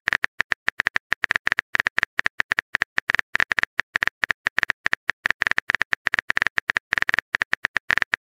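Rapid phone-keyboard typing clicks, an irregular run of about ten taps a second, as a text message is being typed out.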